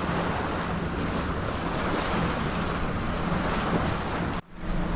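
Wind buffeting the microphone and water rushing past the hull of a sailboat under engine power, over a steady low engine hum. The sound cuts out briefly near the end.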